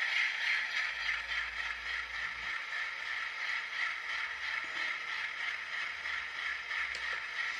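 ESU LokSound sound decoder in an Atlas N scale C-628 diesel model playing its idling diesel engine sound through the tiny onboard speaker: a steady, thin rumble with almost no bass.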